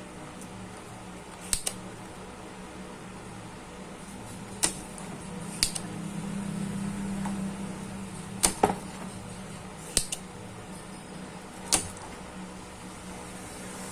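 Sharp clicks and taps of tools on a CRT television's circuit board while the line output transformer (flyback) is being desoldered and pulled: about seven, spread irregularly, some in quick pairs. A faint steady hum runs underneath.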